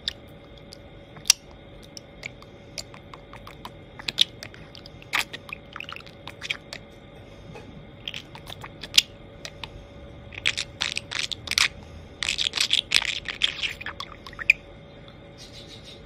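Budgerigar doing its 'beatbox' (voice percussion): sharp clicks and pops made with its mouth, sparse at first, then packed into fast runs about ten and twelve seconds in.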